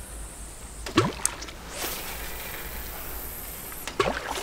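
A spinning rod and reel fished with a spoon: a high, steady hiss of line and reel lasting about two seconds in the middle. A short sound comes about a second in and another near the end.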